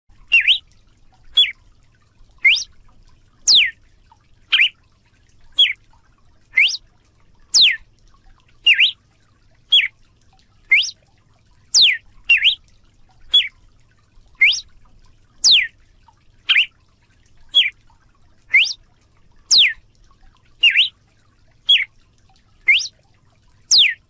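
Galo de campina (red-cowled cardinal) singing: a steady series of short sweeping notes, about one a second, some rising and some falling in pitch.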